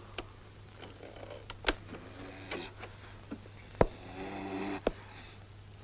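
About four sharp thuds of punches, the loudest a little past the middle, with a man's short grunts and groans between them, over a steady low hum.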